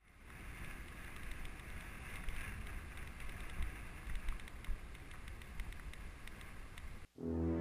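Inline skate wheels rolling on a concrete path: a steady low rumble and hiss with faint clicks, and wind on the microphone. About seven seconds in it cuts off and slow background music begins.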